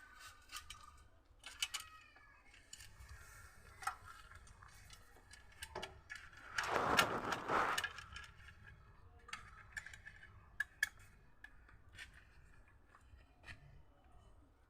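Hands working on motorcycle parts: scattered small metallic clicks and clinks, with one louder scraping, rustling noise lasting about a second and a half near the middle.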